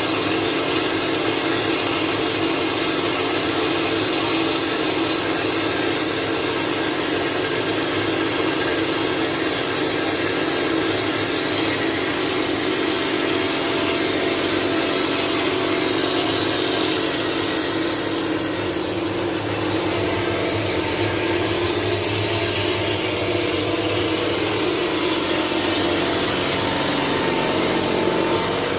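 Vapor blasting machine running: the blast gun gives a loud, steady hiss as it sprays abrasive slurry over a dirty motorcycle engine casing to strip it clean, over a steady machine hum. The hiss changes slightly about two-thirds of the way through.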